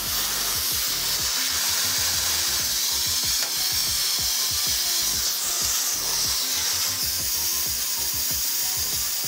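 Air compressor running with air hissing from a blow-gun nozzle, used to spin a fidget spinner. The sound starts abruptly and keeps going steadily, a strong hiss over an uneven low rumble.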